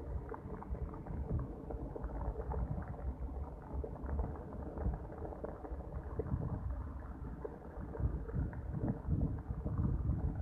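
Heavy downpour and gusting wind, heard as a muffled, crackling rumble through a rain-soaked phone microphone.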